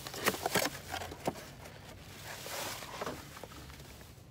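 Cardboard parts box being opened by gloved hands and a new ignition coil taken out: a few sharp taps and crinkles in the first second or so, then soft rustling of the packaging.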